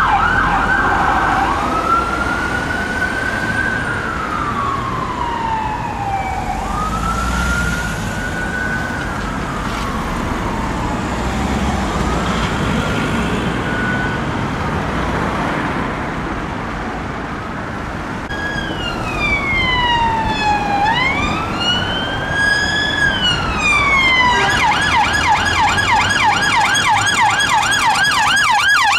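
UK ambulance siren switching from a fast yelp to a slow wail, fading as the ambulance drives off. A Metropolitan Police car siren then comes in wailing, with a second siren's sweeps crossing it, and switches to a fast yelp about 24 seconds in.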